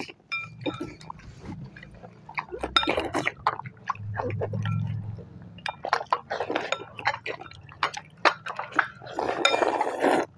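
Slurping of instant noodles and chopsticks clinking against glass bowls, in irregular bursts, as children eat fast.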